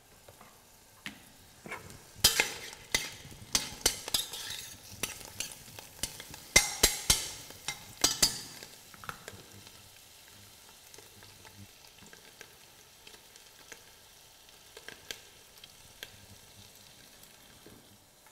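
Chopped vegetables and herbs hitting hot oil in a stainless steel pot, crackling and sizzling hard for several seconds, then settling about halfway through to a quieter steady sizzle with an occasional pop.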